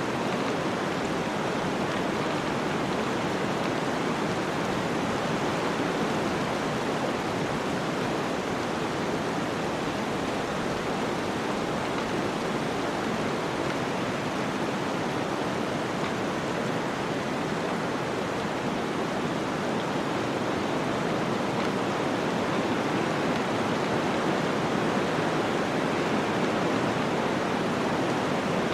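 Steady rush of flowing water, a stream or river running continuously without a break.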